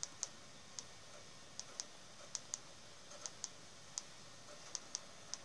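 A dozen or so light, sharp clicks, many in pairs about a fifth of a second apart, coming every half second to a second.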